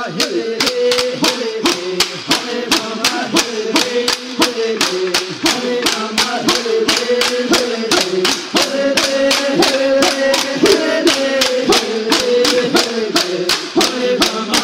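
Native American chanting song, voices singing a repeating melody over a steady, sharp clicking beat of about three strikes a second, accompanying a dance.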